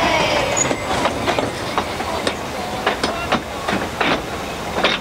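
Narrow-gauge passenger coaches rolling past close by, their wheels clicking irregularly over the rail joints above a steady rumble.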